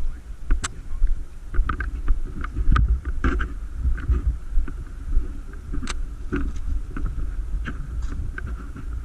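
Wind buffeting the microphone as a heavy, uneven low rumble, with scattered sharp clicks and snaps throughout.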